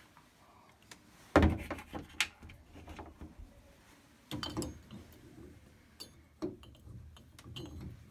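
Knocks and clicks of a clear plastic shower knob being handled and pushed onto the stem of a shower valve cartridge, with one sharp knock about a second and a half in and a cluster of clicks a little past the middle.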